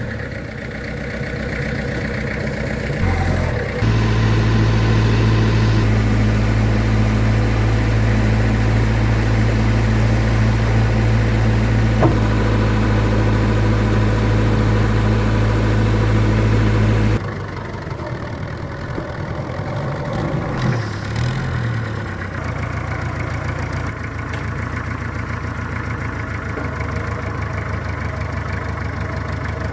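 Vintage truck engine running steadily. It runs louder and heavier for about thirteen seconds from about four seconds in, then drops back to a quieter steady run.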